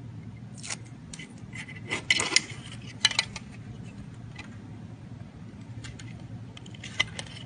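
Scattered light clicks and taps of small plastic parts being handled as a small speaker with a damping pad is pressed into a 1/35 scale RC crawler's chassis, with a short cluster of clicks about two seconds in.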